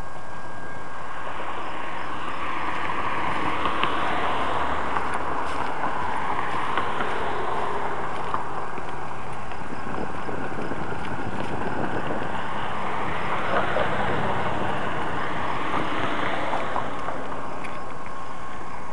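Steady outdoor noise with two road vehicles passing, each swelling up and fading away over a few seconds, one near the start and one past the middle.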